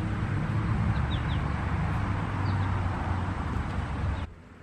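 Outdoor background of a steady low rumble and hiss, with a small bird chirping a few short, high, falling notes, often in pairs. The sound drops away abruptly near the end.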